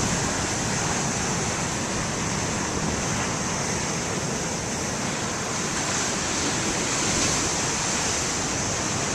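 Big ocean waves surging and breaking as a steady wash of surf, swelling a little about seven seconds in.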